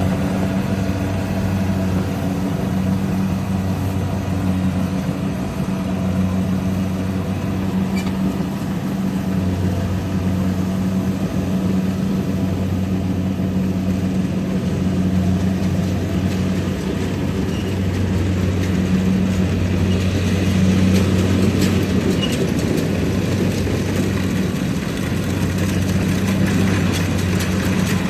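Rice combine harvester running steadily, a low engine hum that holds the same pitch throughout.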